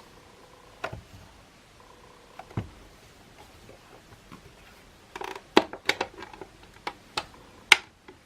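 Light clicks and knocks of a Makita CL107FD cordless vacuum cleaner's plastic parts being handled during disassembly: a few at first, then a quick run of sharper clicks in the last three seconds.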